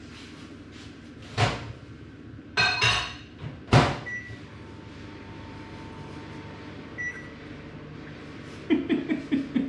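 A microwave oven being loaded and started: the door clicks and knocks, then shuts with a loud bang. A short beep follows, and the oven runs with a faint steady hum, with a second short beep a few seconds later. It is softening butter.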